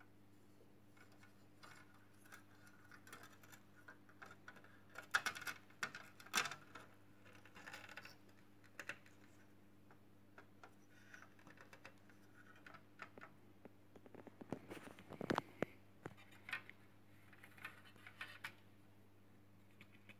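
Faint small plastic clicks, taps and scrapes from handling a Fiat Tempra/Tipo digital instrument cluster and twisting its black plastic bulb holders, fitted with LED bulbs, in and out of the circuit board. The sounds come in scattered bursts, loudest about five to six seconds in and again around fifteen seconds in, over a faint steady low hum.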